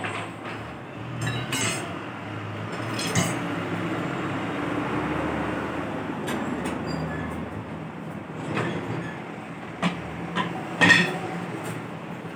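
Metal clinks and knocks of a steel tyre lever against an auto-rickshaw's steel wheel rim as the tyre is worked off it, over a steady background rumble. The knocks come a few at a time, with the loudest near the end.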